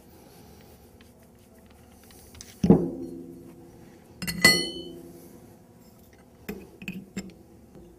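Steel wrenches clinking against the steel bleed down valve as they are set onto it for tightening. A heavy clank with a short ring comes about three seconds in, a sharper, higher ringing clink about a second and a half later, then a few light taps.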